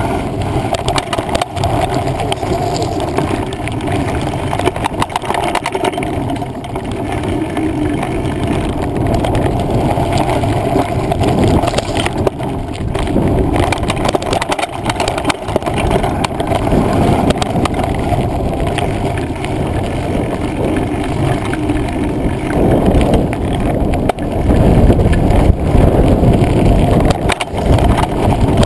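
Mountain bike riding noise on a handlebar-mounted action camera: a loud, steady rumble of wind and tyres on the trail, full of knocks and rattles from the bumps, growing louder near the end.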